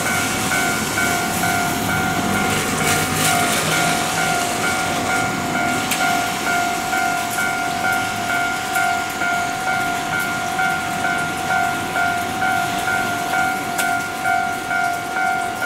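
Electronic railway level-crossing warning bell ringing steadily in an even, repeating rhythm as a train approaches, over a steady hiss.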